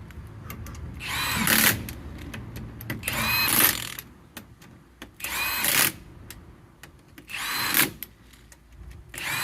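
Handheld power tool run in five short bursts about two seconds apart, the motor's pitch rising in each, typical of running down lug nuts on a freshly mounted wheel.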